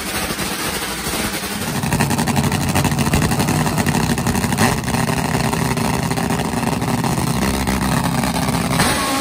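Top Fuel nitro drag motorcycle engine idling with a steady note, which becomes louder about two seconds in.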